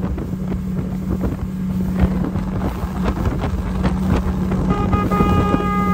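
Outboard-powered motorboat running at speed over choppy water: a steady engine drone with wind on the microphone and knocks of the hull striking the chop. Near the end a steady high-pitched tone sounds for about a second.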